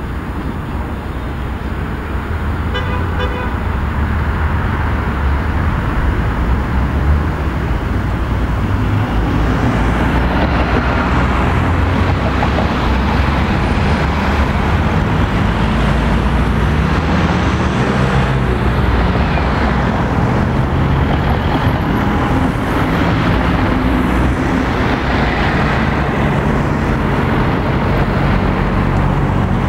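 Street traffic at a junction: cars driving past close by, with engine and tyre noise. It grows louder about four seconds in.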